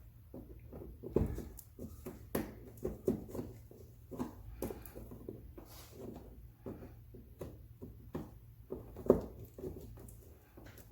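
Irregular light clicks, taps and knocks of hand tools working on the plastic fasteners of a truck's inner fender liner, with two sharper knocks, one about a second in and one near the end.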